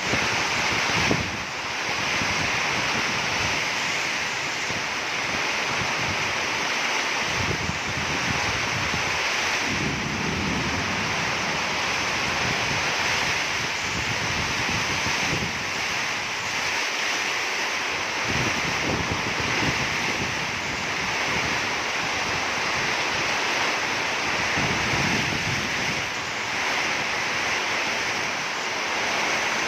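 Torrential rain pouring down in a steady hiss, with gusts of wind buffeting the microphone now and then.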